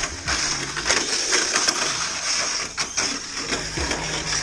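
Tamiya Mini 4WD cars racing on a plastic track: a steady high electric-motor whine, broken by sharp clattering knocks as the cars strike the track.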